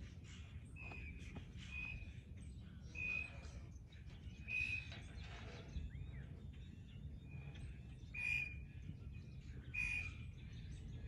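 Blue jay calling: a short, clear high note repeated about every one and a half seconds, with a pause of a few seconds in the middle.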